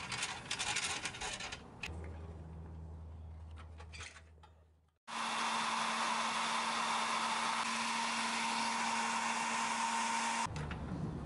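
Hot-air blower running steadily, a loud rush of air with a steady hum under it; it starts suddenly about halfway through and cuts off abruptly near the end. Before it come light clicks and rattles of the pressed-steel toy truck being handled, then a low hum that fades out.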